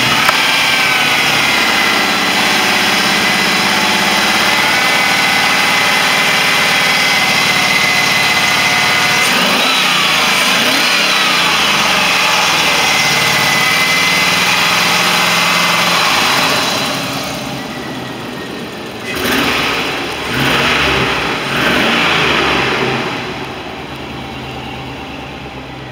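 A 2003 Chevrolet Avalanche's 5.3-litre V8 running at idle, heard close up with a steady high whine over the engine. About two-thirds of the way in the sound drops, then rises in three short swells of revving.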